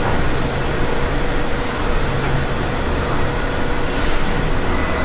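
A tyre-changing machine running steadily while it strips a motorcycle tyre off its rim, with a constant hiss over a low rumble.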